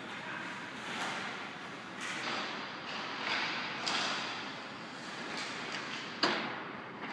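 Ice hockey play in an arena: a steady scraping hiss of skates on the ice, broken by short clacks of sticks and puck, and one sharp, loud crack about six seconds in.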